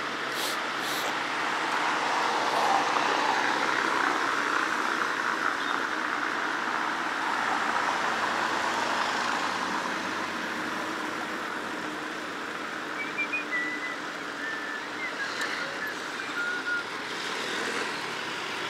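Steady rushing noise of wind and tyres while riding a bicycle along a city street, with car traffic in the background. A few short high chirps come in the second half.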